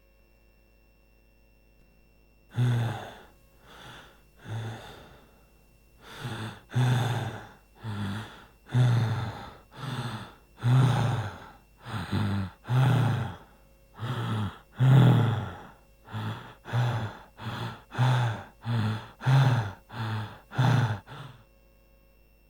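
Heavy, panting breathing, each breath voiced and gasping, about one breath a second in a steady series that starts a couple of seconds in and stops near the end.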